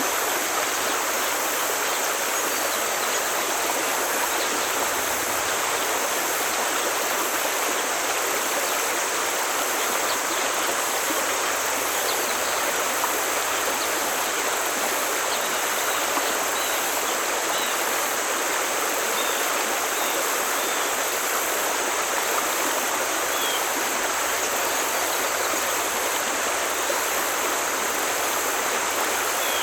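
Forest stream flowing over rocks: a steady, unbroken rush of water.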